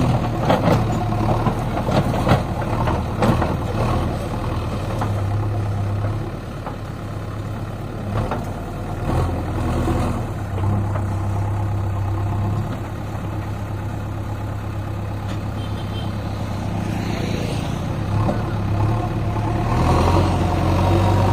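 JCB 3DX backhoe loader's diesel engine running under changing load, its low note rising and falling every few seconds, with scattered knocks and clanks.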